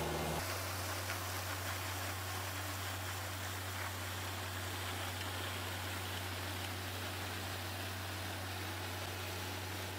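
A John Deere 5100R tractor's diesel engine running at a steady low hum under an even hiss, starting abruptly about half a second in.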